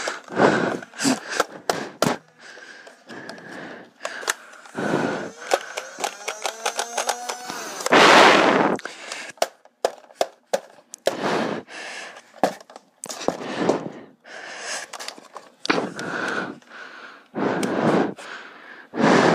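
Nerf Modulus flywheel dart blaster being handled and fired: a string of sharp plastic clicks and clacks, and about six seconds in a whine rising in pitch for two seconds that ends in a loud rush. Loud breathing close to the microphone comes and goes every few seconds.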